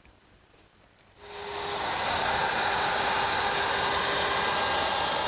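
Plunge router starting about a second in, its hiss and whine rising quickly to a steady run as it rounds over the edge of a cypress rail.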